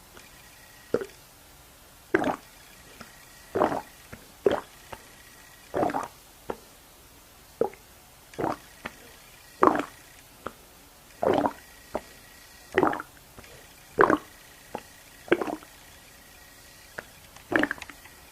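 Stomach noises made on purpose: short wet gurgling plops from a belly holding water, one every second or so at an uneven pace, some bending in pitch.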